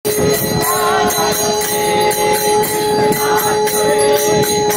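Aarti being performed: a hand bell rings steadily while hands clap in time about twice a second, with voices singing the devotional song.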